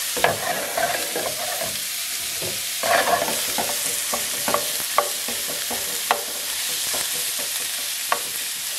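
Ground beef sizzling in a frying pan that is running too hot, pushed and broken up with a utensil as it cooks. There is a steady sizzle with stirring and scraping, and a few sharp clicks of the utensil against the pan, one near the start and three spread through the rest.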